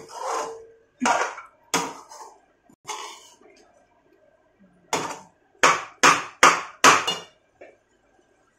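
A perforated steel spoon scraping and clanking against a steel kadai as grated coconut is stirred, in separate strokes. There is a pause midway, then four quicker, louder strokes near the end.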